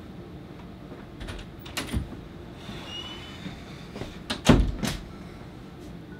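Scattered knocks and bumps of someone moving about a small room, with the loudest, a heavy thud and a second bump, about four and a half seconds in.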